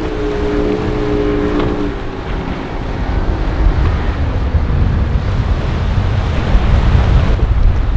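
Motorboat engines running through the inlet, a steady drone that sinks slightly in pitch and fades out about two seconds in. After that, wind buffeting the microphone over the wash of surf.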